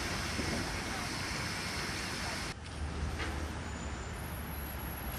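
Road traffic noise: a steady wash of vehicle sound with a low engine rumble. It changes abruptly about two and a half seconds in, the hiss dropping and the rumble growing stronger.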